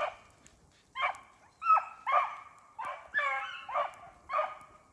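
Hare hounds baying while running a hare's track: about eight short, pitched bawls in quick succession, the sign that the pack is on the scent.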